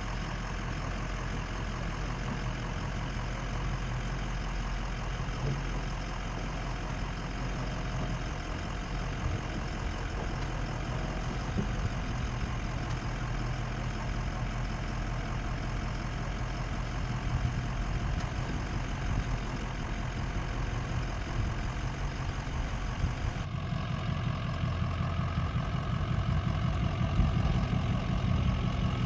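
Ford F-250's Power Stroke diesel engine running at low speed, a steady low hum. The sound shifts abruptly about 23 seconds in and gets a little louder toward the end.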